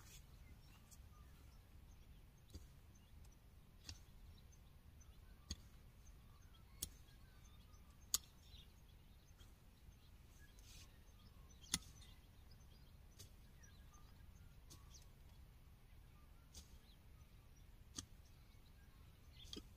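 Near silence: a faint, steady outdoor background hiss, broken by about ten short, sharp clicks at irregular intervals. The loudest two come about eight and twelve seconds in.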